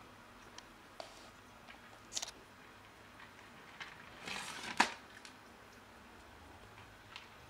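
Faint clicks of a cat eating dry kibble. About four seconds in comes a short rustle ending in a sharp knock as a hand handles the plastic food tub on the wooden floor.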